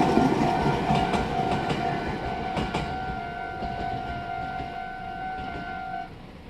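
Japanese level-crossing warning bell ringing its steady "kan-kan" while a Meitetsu train passes and pulls away, its running noise fading with a few wheel clacks over rail joints. The bell stops about six seconds in as the crossing clears.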